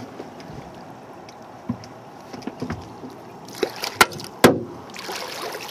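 Water sloshing and splashing against a boat's side as a hooked sturgeon is handled alongside, with scattered knocks and two sharp knocks on the hull about four seconds in.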